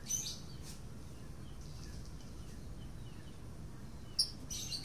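Steady outdoor background noise with faint bird chirps, and a few short sharp clicks near the end.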